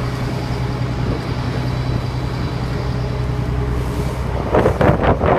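Steady low engine drone, with a short burst of a person's voice near the end, the loudest moment.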